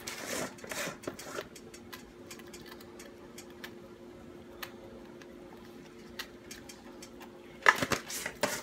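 Seasoning shaken from a plastic shaker onto gravy in a skillet: a few rattling shakes at the start, then faint scattered ticks, with a short burst of handling knocks and rustles near the end.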